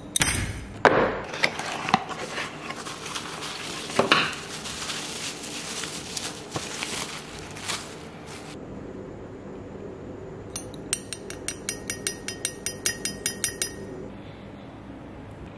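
A metal 3D-printed gear and its packaging being handled: crinkling, rustling bubble wrap and packing noise for about the first half. Later comes a run of sharp metallic clicks, about four or five a second, for a few seconds.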